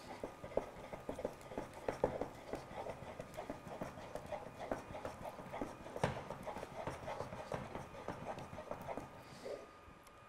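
Wooden spoon beating thick cornmeal mush in a nonstick pot: quick, irregular knocks and soft slaps several times a second as the mush is stirred fast and thickens into a stiff mass, with one louder knock about six seconds in.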